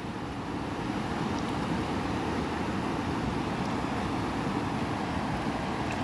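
Steady noise of a river's flowing water.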